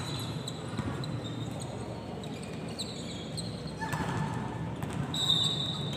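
Indoor volleyball rally in a large gym hall: the ball is struck a few times with sharp smacks, and shoes squeak briefly on the court floor, over the hall's reverberant murmur. A steady high tone sets in near the end.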